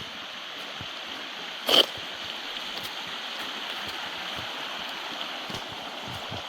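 Steady rushing of river water, with one short, loud knock a little under two seconds in.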